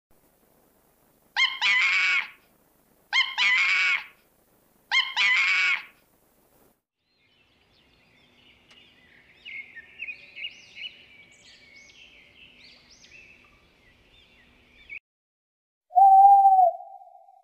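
A string of different animal calls. First come three loud, harsh calls about a second long each, then a stretch of house sparrow chirping, and near the end a single steady hoot.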